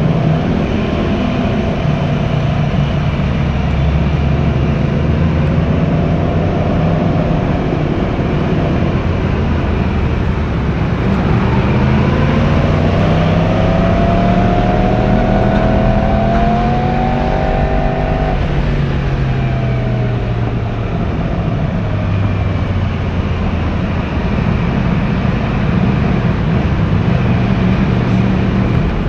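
Yamaha YZF-R1's 1000 cc inline-four on its stock exhaust, ridden on the road. It runs steadily, then climbs in pitch as it accelerates for several seconds, and drops sharply about two-thirds of the way in before running steadily again.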